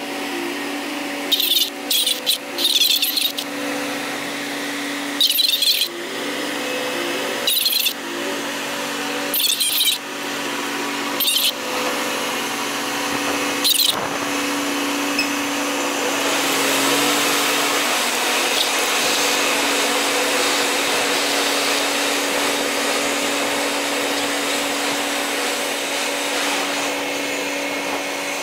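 Steady mechanical hum of the lake freighter Mississagi's machinery as the ship passes close by. Short high-pitched chirps sound every second or two during the first half, and a steady rushing hiss rises after about sixteen seconds.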